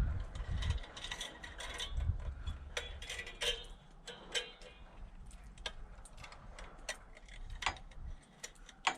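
Small metal carburetor parts being handled and fitted together by hand: scattered light clicks and taps, with a low rumble in the first couple of seconds.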